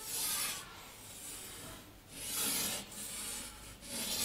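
Chalk scraping across a blackboard in several separate strokes as wavy curves are drawn.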